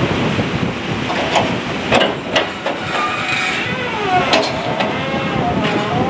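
Strong wind buffeting the microphone with harbour water beneath, broken by several sharp knocks.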